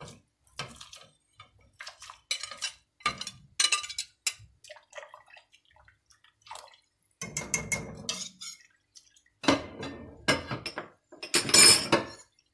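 A wire whisk stirring soup in a stainless steel pot: irregular metal clinks and scrapes against the pot, with sloshing and dripping of the liquid. The loudest stretch comes just before the end.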